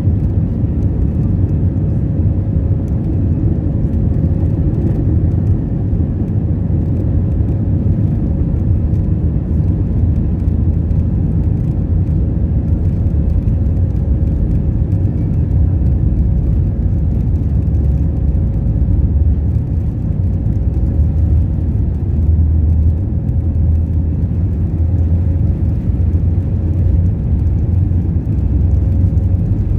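Cabin noise of a jet airliner taxiing on the ground: a steady low rumble of the engines and wheels, with a faint steady hum above it.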